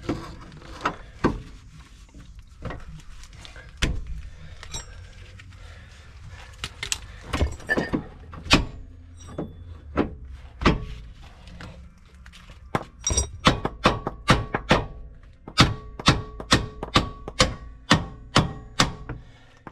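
Hammer blows on metal: scattered strikes at first, then a quick run of strikes over the last six seconds, with the struck part ringing.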